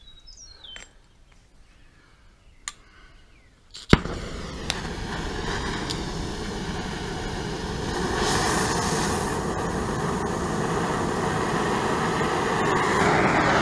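Gas torch lit with a sharp click about four seconds in, then burning with a steady rushing noise that grows louder about halfway through, putting heat on a seized wheel hub.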